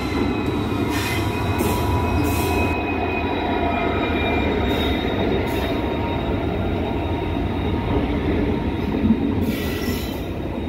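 Diesel-hauled passenger express arriving and running past close by, with the locomotive's rumble giving way to coaches rolling by. A high squeal from the wheels as the train slows to stop drifts slowly down in pitch over the first few seconds, with a few clicks over the rail joints.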